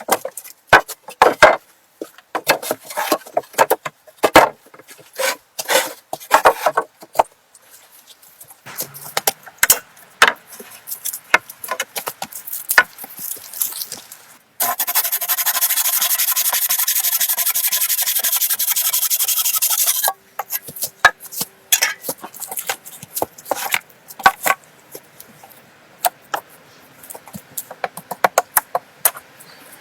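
Hand work on wood: a run of sharp knocks, then scattered scraping and clicking. About halfway through, a steady high buzz starts suddenly and cuts off about five seconds later.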